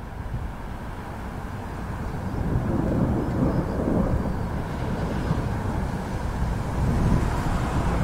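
Thunder rolling in a storm: a deep, continuous rumble that grows louder over the first few seconds and swells again about three to four seconds in and near the end.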